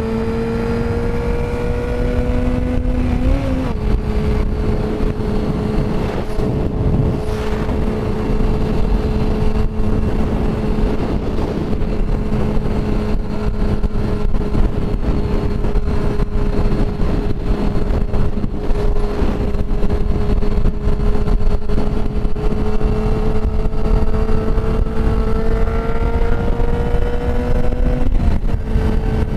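Sportbike engine cruising at highway speed under heavy wind rush. The engine note climbs a little and then drops with a gear change about three and a half seconds in, holds steady, then rises slowly and drops again near the end.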